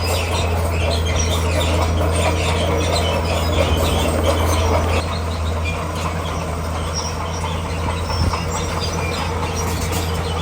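Crawler bulldozer at work: its diesel engine running with a steady low drone, and its steel tracks squealing and clanking over it. The machine is a Komatsu D41P.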